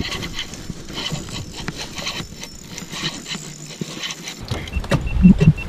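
Spinning reel being cranked against a hooked fish, a dense run of fine clicks and rattles with rustling handling noise on a chest-mounted camera. Near the end a rapid row of short high beeps sounds, with a few heavy thumps.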